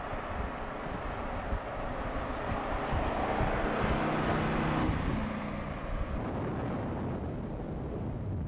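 Mercedes-AMG GT's 4.0-litre twin-turbo V8 and tyres as the car drives by, the engine note swelling to its loudest about four to five seconds in and then easing off.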